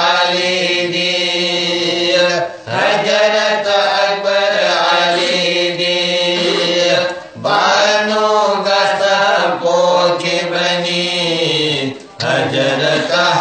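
A group of men singing a Manipuri marifat, a Muslim devotional song, together in long held chanted phrases, breaking briefly for breath about every five seconds.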